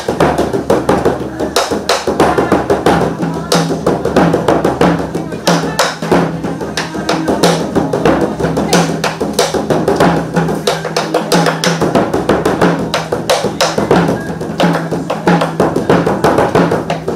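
Pair of large Korean barrel drums (buk) beaten with wooden sticks in a fast, steady rhythm, the strikes sounding over accompanying music.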